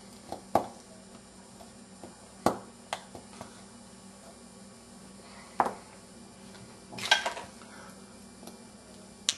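Sharp plastic clicks and snaps, scattered over several seconds with a quick cluster near the end, as a thin pry tool and fingers work along the edge of an Alcatel One Touch 918D's plastic case and its clips let go. A faint steady hum underneath.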